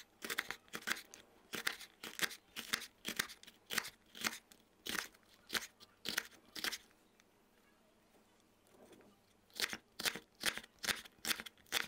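Chef's knife slicing green peppers into thin rings on a wooden cutting board: a run of crisp chops, about three a second, which stops for a couple of seconds partway through and then starts again.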